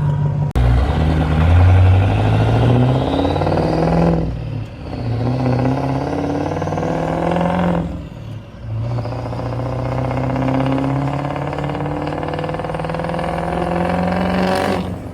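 Built 6.0 Powerstroke V8 turbodiesel accelerating hard, its engine pitch climbing through three pulls with two gear changes between, then backing off near the end.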